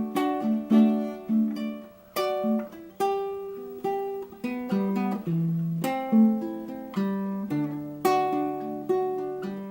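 Baritone ukulele played solo, an instrumental break picked note by note over chords, each note struck sharply and ringing away.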